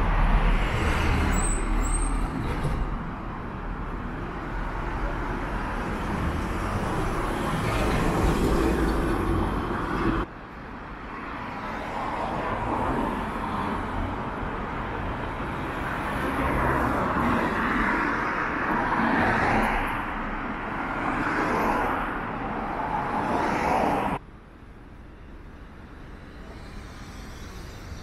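Road traffic on a city street: cars driving past, with steady road noise. The level drops suddenly about ten seconds in and again near the end.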